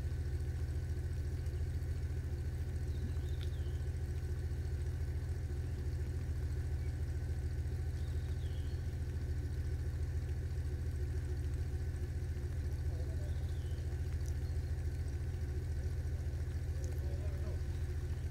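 A motor running steadily at idle: a low, even rumble that does not change.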